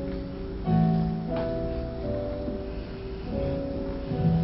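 Keyboard playing soft held chords, which change about every second or two.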